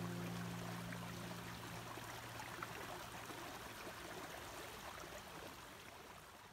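A small brook running steadily, a soft even rush of water. The last held notes of background music die away about two seconds in, and the sound grows fainter toward the end.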